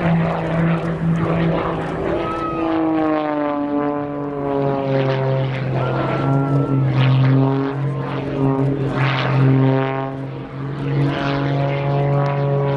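Extra 300 SR aerobatic plane's piston engine and propeller running hard in a display. Its pitch slides down a couple of seconds in as the plane passes, then shifts and wavers as it manoeuvres.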